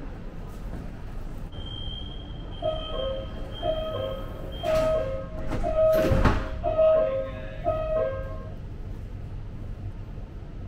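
Metro train door-closing warning: a high-low two-note electronic beep repeating about once a second for some six seconds, preceded by a steady high tone. About six seconds in, the sliding doors shut with a loud thud.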